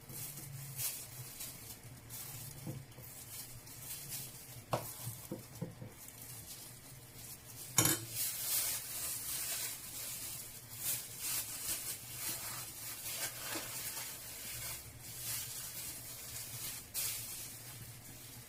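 Thin plastic bag crinkling and rustling as it is handled and filled with bean batter, with light scraping and knocks of kitchen utensils and one sharper knock about eight seconds in.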